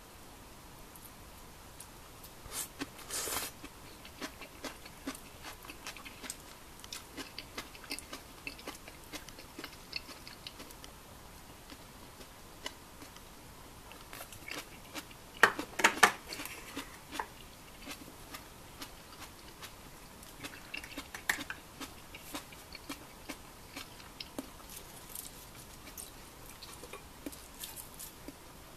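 Chopsticks and tableware clicking and tapping at a dinner table, with some chewing. A louder, sharp clatter comes about halfway through.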